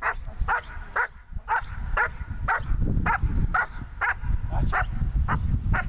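A German Shepherd dog barking repeatedly and evenly, about two barks a second, at the decoy holding the bite sleeve during Schutzhund protection work.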